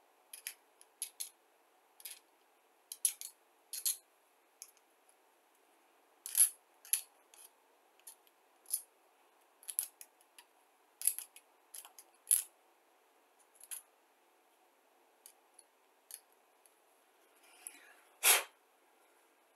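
Chrome plating being scraped off the edges of a chrome-plated plastic model part: many short, irregular scrapes, with one louder, longer scrape near the end.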